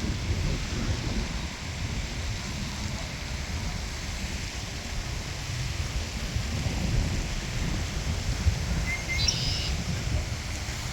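Wind buffeting the microphone as a steady low rumble under an even hiss, with a brief bird chirp about nine seconds in.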